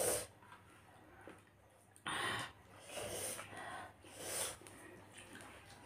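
A person's short, noisy breaths and sniffs while eating, several in a few seconds, the loudest about two seconds in.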